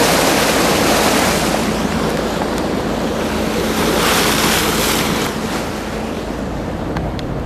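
Bow wave of a moving boat: water rushing and splashing along the hull, with wind buffeting the microphone and a steady low engine hum underneath. A surge of splashing comes about four seconds in, then the rush eases a little.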